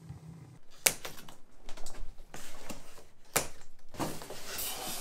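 Wood fire crackling in a newly lit Charmwood Aire 3 log burner: irregular sharp cracks and pops at uneven intervals.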